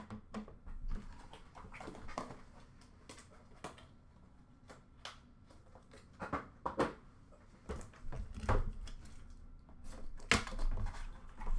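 Handling noise from hard plastic graded-card slabs: scattered light clicks and taps as they are set down and moved on a stack. A louder click about ten seconds in as a black card box is picked up and opened.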